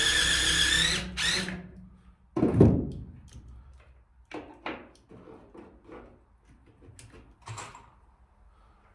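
Cordless drill running under load, drilling through a timber batten into steel angle iron. It stops about a second in, with a brief rising rev just after. A dull thump follows about two and a half seconds in, then several lighter knocks and clicks.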